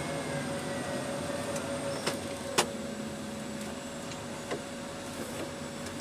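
Tractor running, heard from inside its cab while driving with a front snow plough: a steady hum with a constant whine. A few sharp clicks or knocks break through, the loudest about two and a half seconds in.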